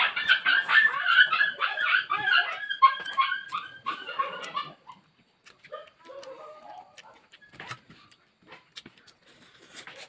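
A dog whining: a rapid run of short, high-pitched cries for about five seconds, then fainter whimpers with a few small clicks.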